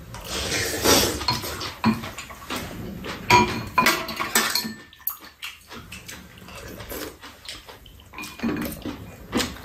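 Eating at a table: metal spoons and chopsticks clinking and scraping against ceramic bowls, mixed with slurping and chewing of bean sprout and egg soup, in irregular bursts.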